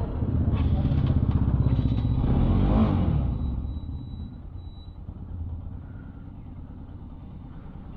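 A motor vehicle's engine runs loud and passes close about three seconds in, then fades away, leaving quieter street background.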